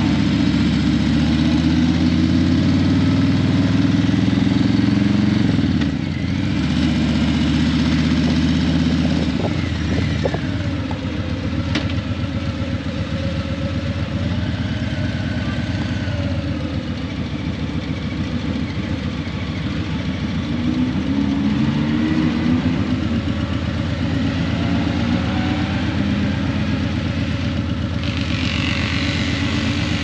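Harley-Davidson Breakout 117's Milwaukee-Eight V-twin running through Vance & Hines Eliminator 300 slip-on mufflers while the bike is ridden. The revs drop and rise again a few times, with changes about 6 and 10 seconds in and again around 21 to 23 seconds.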